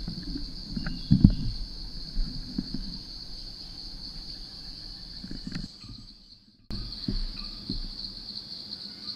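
Steady high-pitched insect chorus chirring in the forest, broken by a short fade to quiet about six seconds in before it comes back. A few soft low thumps sound over it, the loudest about a second in.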